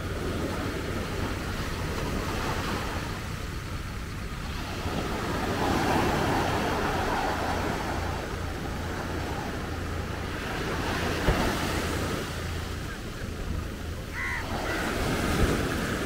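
Small surf waves breaking and washing up on a sandy beach, the wash swelling and easing several times over a steady low rumble.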